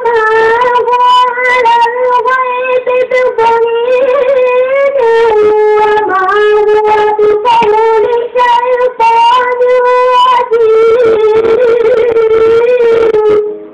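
A qari's high voice in melodic Quran recitation (tilawah), drawing out long melismatic held notes with wavering ornamental turns. The pitch steps down about five seconds in, and the phrase ends just before the close.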